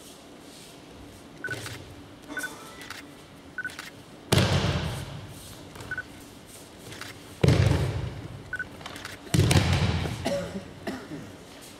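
Aikido throws: a partner's body slamming onto tatami mats in breakfalls, three heavy thuds, the first about four seconds in, each trailing off in the echo of a large hall. Lighter knocks of feet on the mats come before them.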